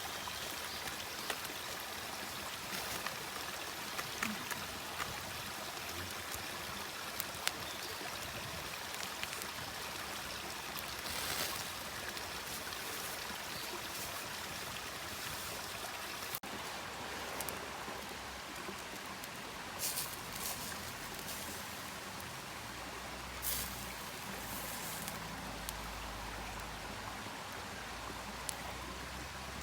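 Wood campfire with chicken skewers grilling over it: a steady hiss and sizzle with scattered sharp crackles. A low rumble joins for the last few seconds.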